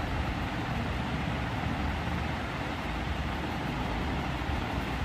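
Steady low background rumble with a faint hiss, unchanging throughout.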